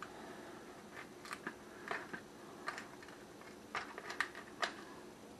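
Serving spoon scraping and digging into a baked casserole in a disposable aluminium foil pan: a series of faint, short scrapes and clicks at irregular intervals.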